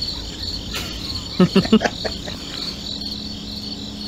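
Crickets chirping steadily, with a quick run of four short, low sounds about a second and a half in.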